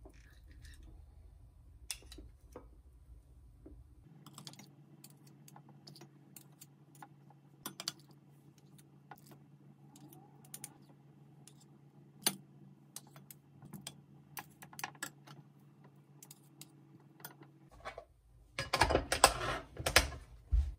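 Light clicks and taps of a metal spoon and knife against a ceramic bowl and dish while chopped egg salad is spooned onto fried tofu sushi. Near the end comes a louder clatter as a glass storage container is handled on the glass cooktop.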